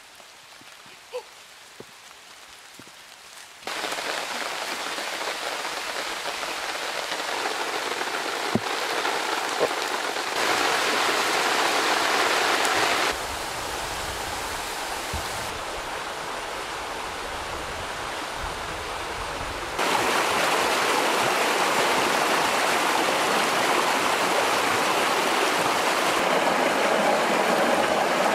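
A quiet forest with a few faint clicks, then from about four seconds in a steady hiss of rushing water that jumps up and down in level several times.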